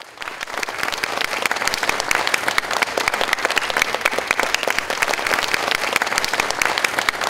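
Audience applauding, a dense, steady clapping that starts suddenly.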